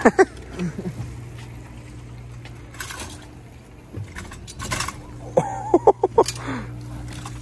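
Heavy rental city bike (Oslo City Bike) ridden over a concrete skatepark: its frame and parts clatter, with a few sharp knocks just after the start and a quick run of knocks with a short squeal about five and a half seconds in. A steady low hum runs underneath.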